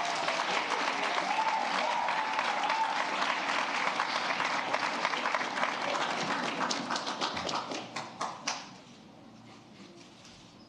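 Audience applauding steadily, thinning to a few scattered claps and stopping about two seconds before the end.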